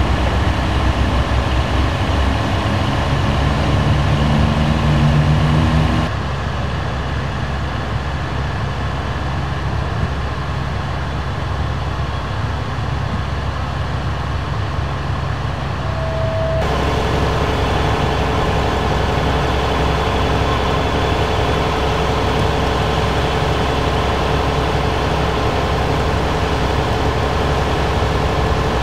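Fire apparatus diesel engines idling with a steady low rumble. The sound shifts abruptly twice, about six seconds in and again a little past the middle, and a steady hum joins after the second change.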